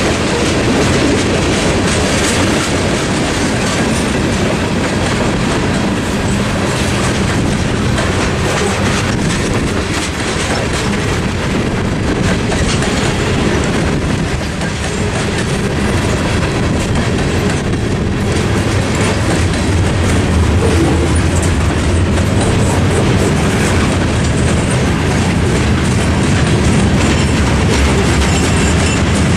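Freight train cars rolling past at a road crossing: tank cars and then gondolas, with a steady rumble and clacking of their wheels over the rails.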